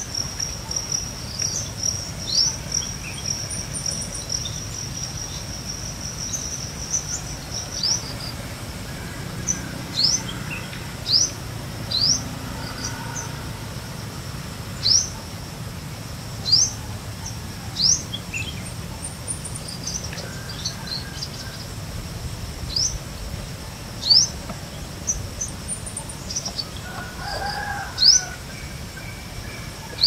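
A steady high-pitched insect trill, loudest for the first several seconds, under a bird repeating a short rising whistled call every second or two. Another bird gives a lower call near the end.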